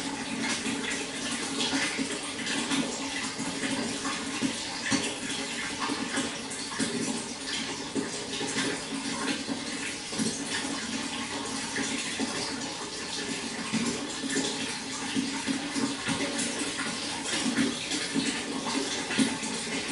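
Running water, a steady splashing rush with small irregular spatters throughout.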